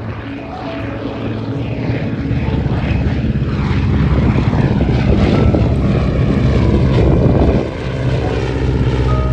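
Propeller-driven aerobatic aircraft flying past the crowd line. The engine and propeller sound grows louder for several seconds with falling pitch sweeps, peaks, then drops abruptly about three-quarters of the way through as the aircraft pass.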